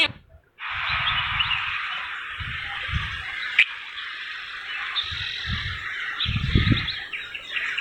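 Many birds chirping at once, a dense steady chatter that starts after a brief silent gap in the first second, with low rumbles coming and going underneath.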